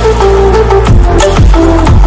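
Electronic background music with a steady beat, deep bass notes that drop in pitch, and a held melody line.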